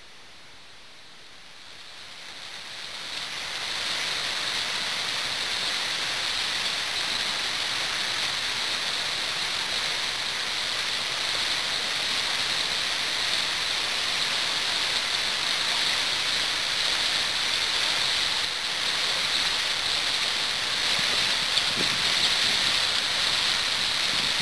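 Rapids of a river in flood, running a meter above normal: a steady rush of fast, muddy water that swells up over the first few seconds and then holds.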